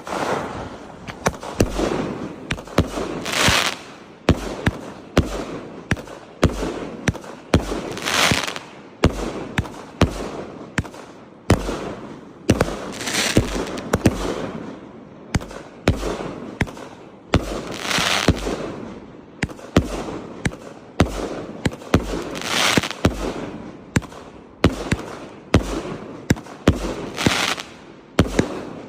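Fireworks going off in quick succession: many sharp bangs and crackles, with a loud hissing rush about every five seconds.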